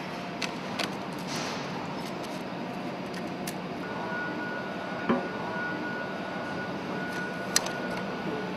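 A few sharp metallic clicks and knocks from hand tools and toggle latches on stainless steel exhaust cladding, over a steady workshop hum; a faint steady high tone comes in about four seconds in.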